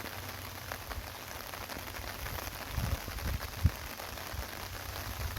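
Steady rain falling, a dense patter of drops. About three seconds in come a few low thumps, one sharper than the rest.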